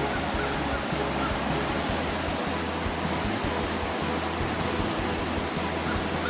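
Swollen, fast-flowing creek in flood, its water rushing with a steady, even noise.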